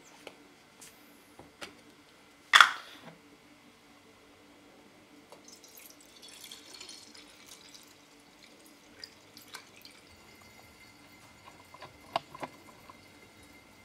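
A vacuum lid comes off a glass jar with one short, loud release about two and a half seconds in. Then barberry tincture trickles and drips faintly through a sponge-filtered steel funnel into an empty glass jar, with a few small clicks.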